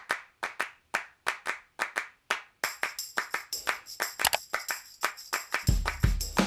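Intro music: a rhythm of handclaps, about two or three a second, joined by more instruments a little before halfway through, with a heavy bass beat coming in near the end.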